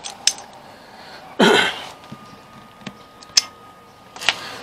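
A few small clicks and taps from pliers and a spring hose clamp being fitted onto a mower's rubber fuel line, with a short breathy noise about a second and a half in.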